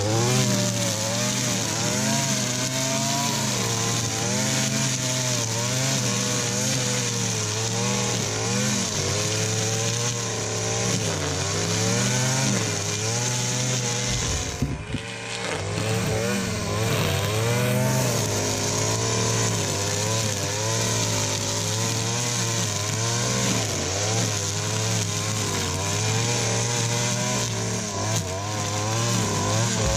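Gas-powered string trimmer running at high throttle, its engine pitch rising and falling as the line cuts through thick grass and weeds. About halfway through, the engine briefly drops off, then revs back up.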